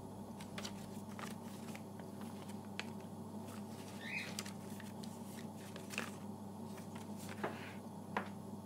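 Paper and envelopes handled at a kitchen counter: light rustles and small taps scattered through, over a steady low electrical hum.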